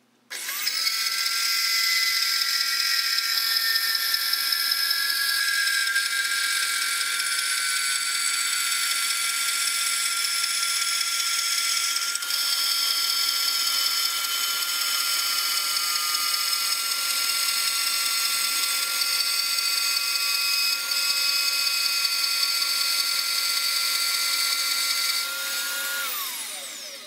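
Bandsaw cutting through 2x4 rectangular steel tubing: a steady high-pitched whine with the blade rasping through the metal. Near the end the saw winds down, its pitch falling, and stops.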